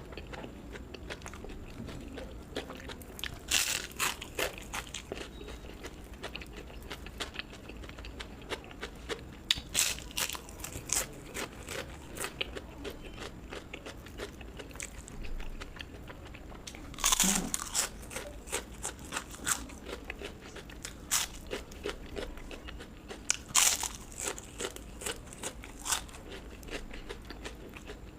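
Close-miked eating: crisp crunching bites and chewing of crunchy fried food, with several louder crunches spread through.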